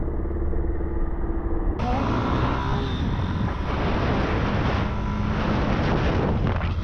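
Motorcycle engine running steadily as the bike rides along, with road and wind noise rushing over a helmet-mounted microphone.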